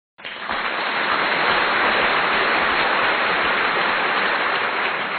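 A steady, even hiss of noise that cuts in suddenly just after the start and begins to fade near the end.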